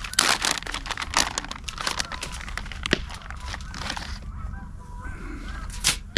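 Packaging crinkling and rustling as the catfish is handled, a dense run of crackles. From about four seconds in, a string of faint, short honking calls, like geese.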